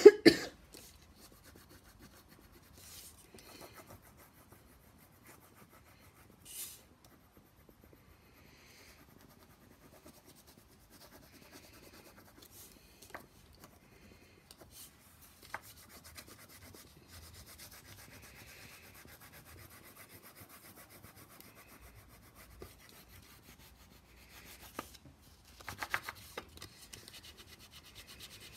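Red wax crayon rubbed back and forth over a paper plate, a faint scratching that runs on and grows louder near the end. A single cough right at the start.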